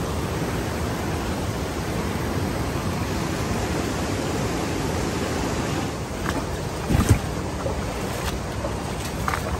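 Rushing river rapids: a steady hiss of fast white water. The rush eases a little about six seconds in, followed by a few light clicks and one short thump.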